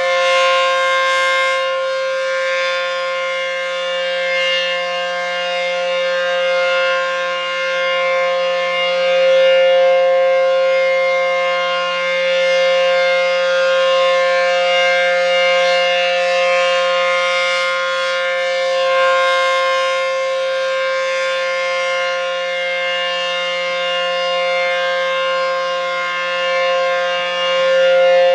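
ACA P-15 outdoor storm siren sounding a steady tone. Its pitch holds level while its loudness swells and eases slowly every several seconds.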